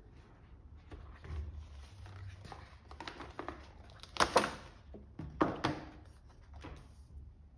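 Cardboard jigsaw puzzle box being unboxed on a wooden table: the inner tray is slid out of its sleeve and the contents handled, with soft scrapes and light knocks. The loudest comes a little over four seconds in, and again about a second later.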